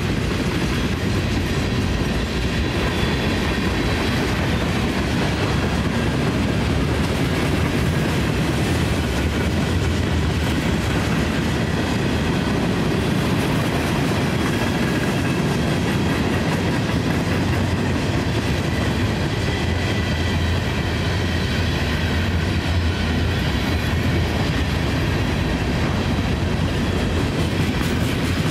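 Cars of a mixed freight train rolling steadily past close by, the wheels clacking over the rail, with faint high squeal tones now and then.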